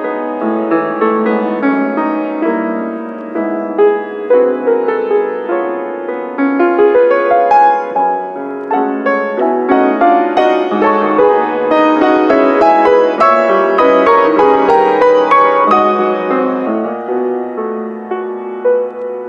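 A grand piano played four hands: a continuous flowing passage of many notes, which thickens and grows louder about halfway through and thins out again near the end.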